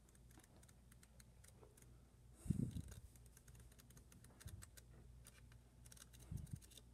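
Paper pages of a small flipbook thumbed past one after another, a quick run of faint ticks as each page slips off the thumb. A soft low thump from handling the book about two and a half seconds in, and another near the end.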